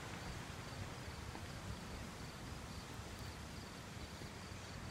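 Insects, cricket-like, chirping outdoors: a steady series of short, high chirps, a few a second, over a low rumble.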